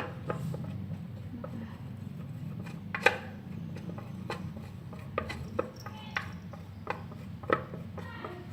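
A spoon clinking and tapping irregularly against a container while water is spooned into slime glue, over a steady low hum.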